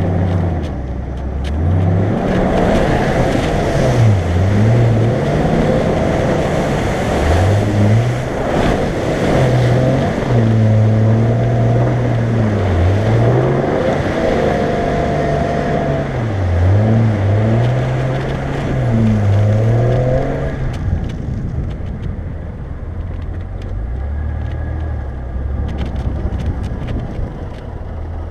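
Jeep Grand Cherokee WJ engine revving up and down again and again. About three-quarters of the way through it drops to a lower, steadier note.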